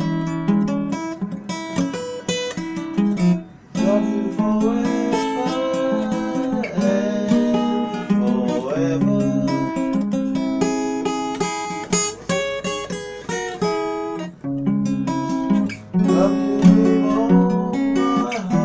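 Instrumental music of chords under a melody line, with a few notes sliding in pitch about halfway through and short breaks between phrases.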